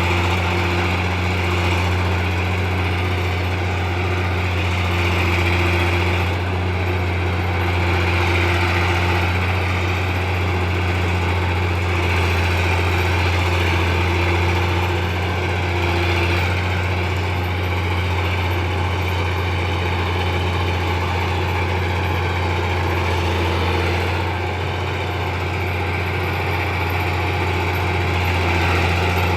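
Komatsu D60-8 bulldozer's diesel engine running steadily with a deep, even drone.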